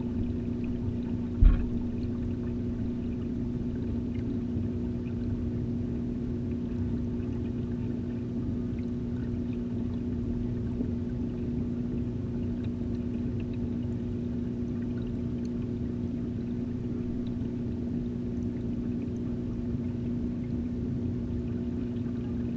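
Steady low hum of the aquarium's filter pump, heard underwater through the camera's housing, with one dull knock about a second and a half in.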